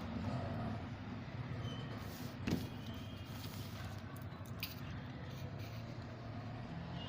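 Steady low background rumble, like distant road traffic, with one sharp click about two and a half seconds in and a few fainter clicks after it.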